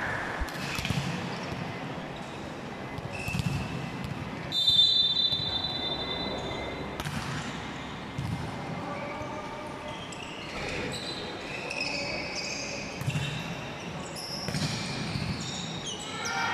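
Indoor volleyball play echoing in a large sports hall: a steady referee's whistle blast about four and a half seconds in, then the ball being struck and sports shoes squeaking on the court through the rally.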